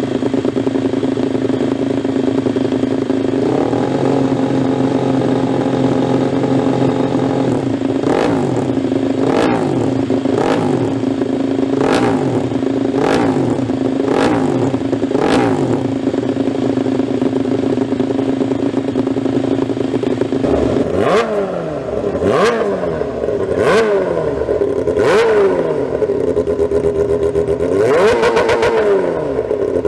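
Race motorcycle engines idling steadily, then revved in a string of short throttle blips, about one a second, from about eight seconds in, with another run of blips in the second half.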